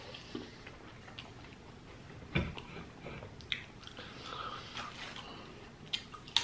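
A person chewing a cheesesteak sandwich close to the microphone: quiet chewing with a few sharp mouth clicks, the loudest about two and a half seconds in.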